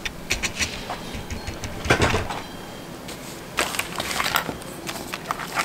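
Handling noise on a wooden workbench: scattered light clicks and knocks as small items and a rubber mat are moved and set down, with a louder thump about two seconds in.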